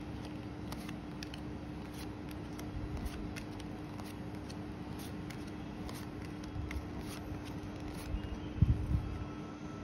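Stiff tarot cards being handled on a wooden tabletop: scattered light clicks and slides as cards are picked up and laid down one at a time, with a few dull thumps near the end, over a steady hum.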